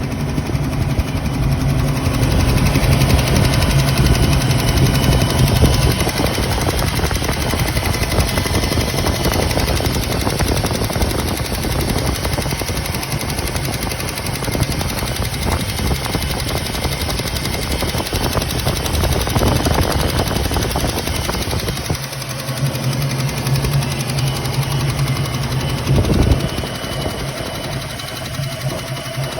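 1967 Ford Mustang's 289 cubic-inch small-block V8 running, louder in the first few seconds and with a short rev of the throttle near the end.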